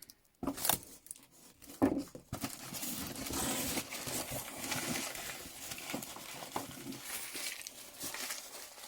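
Packing material in a cardboard box of tools crinkling and tearing as it is pulled open and rummaged through. There are a few sharp knocks in the first two seconds, then a dense run of crinkling that thins out near the end.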